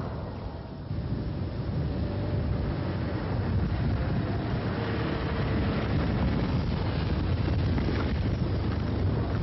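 A small hatchback car driving toward the microphone, its engine and tyres heard over a steady low rumble of wind on the microphone.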